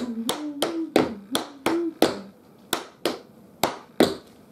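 Metal taps on tap shoes striking the floor in a beginner combination of steps and shuffles. About three crisp clicks a second, each ringing briefly, in an uneven rhythm.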